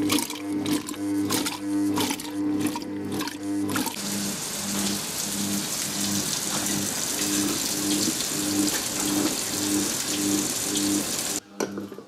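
Water boiling in the steel bowl of a Silvercrest Monsieur Cuisine cooking robot, a steady hiss of steam that stops suddenly near the end. Background music with a repeating low note pattern plays underneath.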